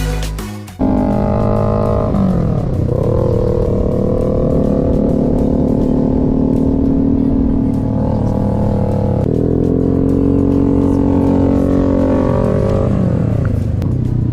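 Honda Forza 250 scooter's single-cylinder engine running on the move, its engine speed dipping and climbing back a few times. Background music cuts off just under a second in.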